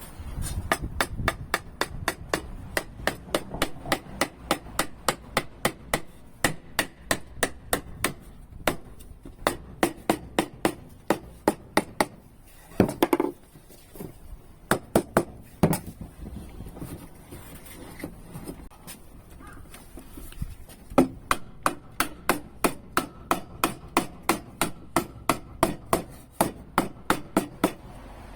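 Hammer tapping on wood in long runs of quick, even strikes, about three to four a second. There is a few-second lull in the middle, and a few heavier blows come around halfway.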